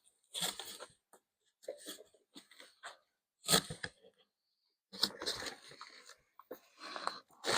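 Cardboard bike box and packing material being handled: short, scattered scrapes and crinkles, several of them about a second apart.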